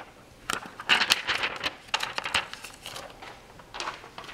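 Crinkling and crackling of the thin protective plastic on a replacement laptop LCD panel as it is handled and peeled off, in irregular bursts.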